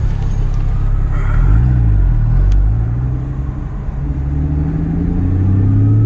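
2016 Porsche Cayman GT4 (981)'s 3.8-litre flat-six running at low speed, with a brief rise and fall in revs about a second and a half in, then the revs climbing gently near the end.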